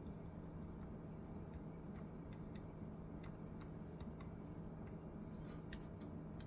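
Faint, scattered light clicks over a steady low hum, with a quick cluster of sharper clicks about five and a half seconds in.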